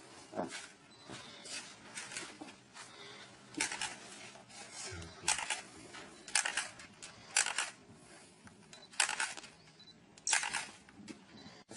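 A string of short, breathy puffs close to the microphone, about one a second, with faint rustling between them.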